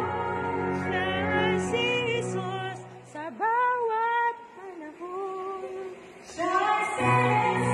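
A woman sings a slow devotional song with electronic keyboard accompaniment. Partway through, the keyboard chords drop away and she holds long notes with vibrato almost alone. The chords come back near the end.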